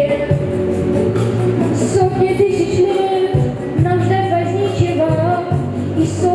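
A boy singing a pop song over a backing track with a bass line and a steady beat.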